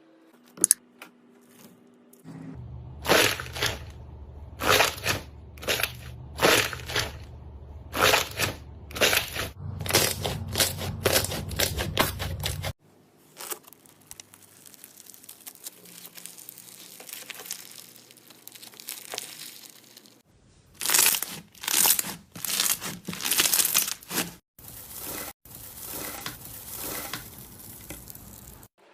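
Slime being squeezed, pressed and stretched by hand, giving runs of sharp crackling, crunchy pops. It comes in several short segments that cut off abruptly, the first with a low hum beneath it.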